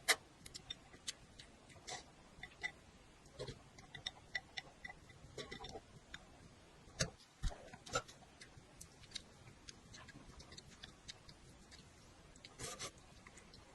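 Close-up eating sounds: irregular small wet clicks and smacks of chewing, a few louder ones about halfway through.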